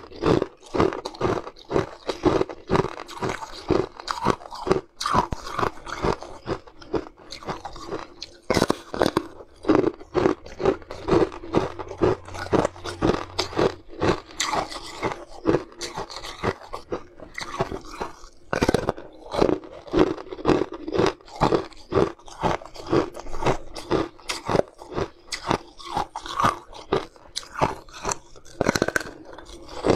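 Biting and chewing a hard, brittle, translucent purple snowflake-shaped treat: loud crunches several times a second, with a few short pauses.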